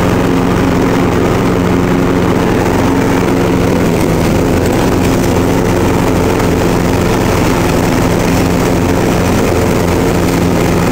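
Riding lawn tractor's newly installed engine running steadily as the tractor is driven along.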